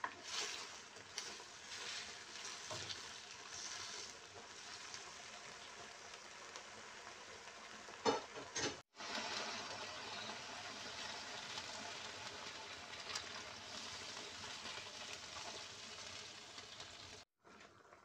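Chicken gizzards simmering in adobo sauce in a nonstick wok, bubbling and sizzling steadily, with a spatula stirring and scraping the pan in the first few seconds. A sharp knock about eight seconds in is the loudest sound.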